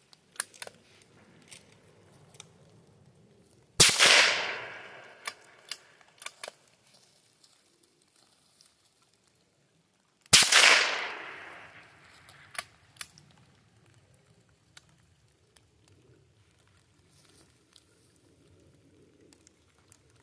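Two rifle shots about six and a half seconds apart, each followed by a long echo that dies away over a second or two. A few sharp clicks follow each shot.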